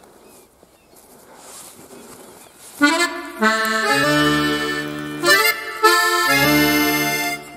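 Faint outdoor background noise, then about three seconds in accordion music starts, playing held chords over bass notes with short breaks between phrases.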